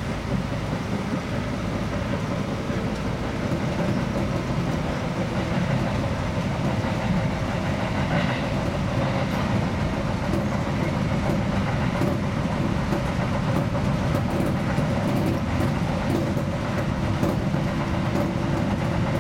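Seibu 2000 series electric train running at speed, heard from the driver's cab: a steady rumble of wheels on rail with motor hum, growing a little louder over the first few seconds. Sharp clicks of the wheels over rail joints come more often in the second half.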